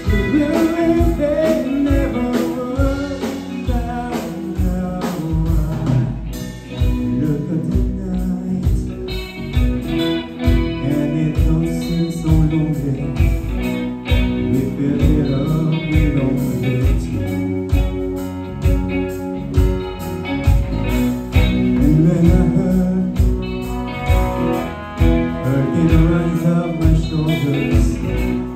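Four-piece live band playing a song: electric guitar, bass guitar, keyboard and drum kit over a steady beat, with a male lead vocal.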